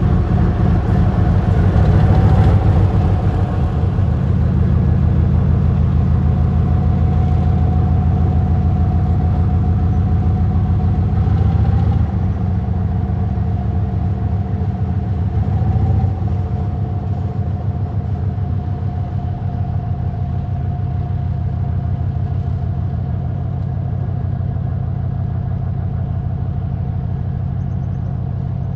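Diesel locomotive's 10D100 two-stroke opposed-piston diesel engine running steadily with a deep throb and a steady whine above it, easing down in loudness in two steps near the middle.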